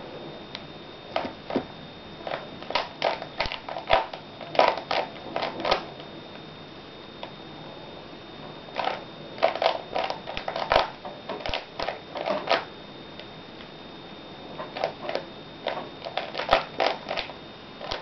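Plastic Rubik's Cube layers being turned by hand: quick clicking clacks in three runs of turns, separated by pauses of two to three seconds.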